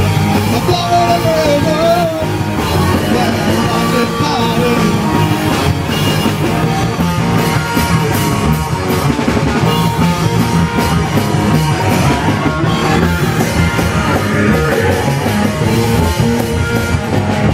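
A rock band playing live, loud and continuous: electric guitars over a drum kit.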